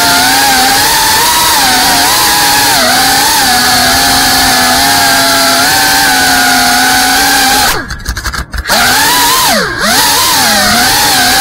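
FPV racing quadcopter's motors whining with a buzzing, saw-like tone, the pitch wavering up and down with the throttle. About eight seconds in the sound nearly cuts out for under a second, and a moment later the pitch dips sharply and climbs back, as the throttle is chopped and punched again.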